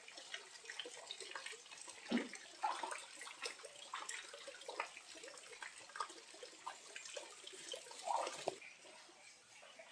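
Small waterfall at low flow: water gently gurgling and splashing, with many small plops over a soft hiss. The higher hiss drops away near the end.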